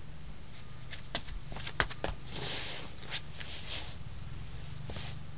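Sharp clicks and taps from a folding camp chair's aluminium pole frame and rubber-capped feet on concrete, followed by short rustles of the chair's nylon seat fabric as someone sits down and settles into it. The loudest click comes just before two seconds in. A steady low hum runs underneath.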